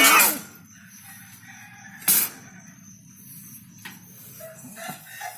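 A cat's drawn-out caterwaul ending in the first half-second, then a short sharp noisy burst about two seconds in, amid a territorial standoff between two cats.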